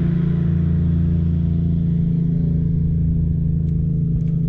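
Bass boat's motor running at a steady speed, a low even hum that does not change, with a few faint ticks near the end.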